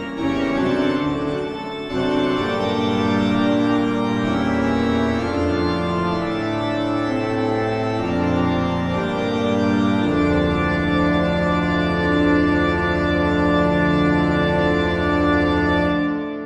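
Horror-style organ music: slow, sustained organ chords shifting every second or two, dying away at the very end.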